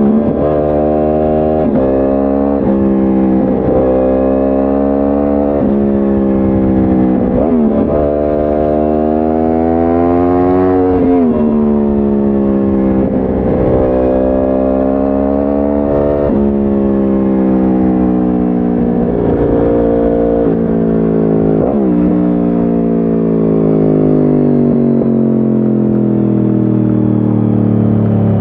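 2010 Yamaha R1 crossplane inline-four through a de-catted Akrapovic exhaust, being ridden. Its revs climb and drop sharply again and again at each gear change, with one longer pull midway, then fall slowly and steadily in the last few seconds as it slows.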